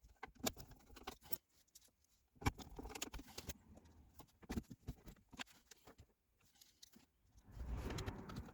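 Faint, scattered clicks and knocks of car parts being handled during reassembly of the gear selector, with a louder rustling scrape near the end.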